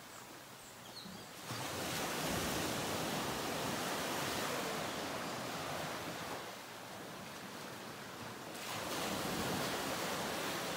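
Ocean surf: a steady wash of waves that swells up twice, about a second in and again near the end, easing off between.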